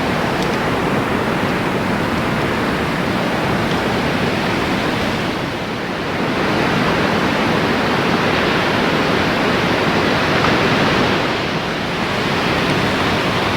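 Ocean waves washing in a continuous, loud rush that swells and eases twice.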